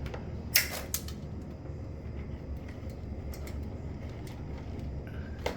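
Two sharp plastic clicks about half a second apart, with a few fainter ticks later, from a vertical blind vane and its clip being handled, over a steady low hum.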